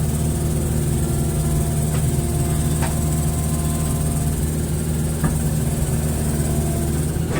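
Hitachi excavator's diesel engine running steadily, with a few faint knocks.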